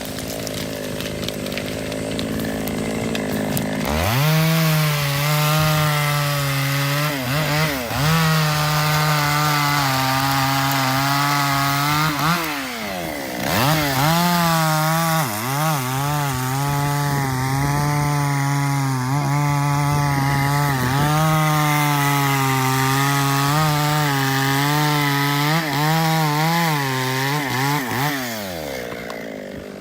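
Chainsaw revving up about four seconds in and running at high speed cutting wood, its pitch dipping briefly a few times, then winding down near the end.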